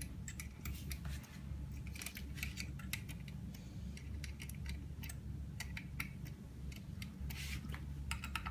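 Irregular light metallic clicks and ticks of small tools and metal parts being handled on a laminating machine, over a steady low hum.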